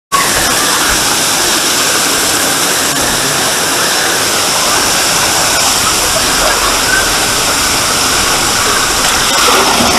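Steady rush of flowing and splashing water on a water-park slide tower, with water pouring down the slide flumes and falling onto the deck.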